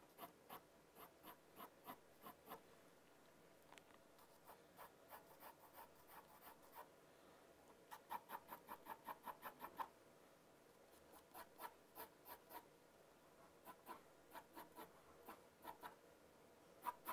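Pencil scratching on drawing paper in quick back-and-forth strokes, going over the outlines again and again to darken them. Faint, in runs of about four or five strokes a second with short pauses between runs.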